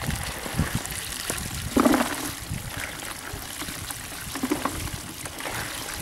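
Wet small fish being scooped with a plastic basket from a bamboo basket: the fish slithering and rustling with water trickling and dripping, and a louder wet scrape about two seconds in.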